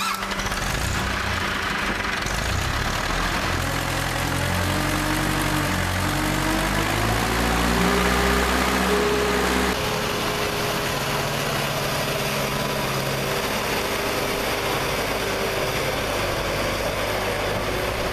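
Tractor diesel engine running, its pitch stepping up and down for the first half. After a cut about ten seconds in, a Zetor 9641's engine runs at a steady pitch as the tractor drives.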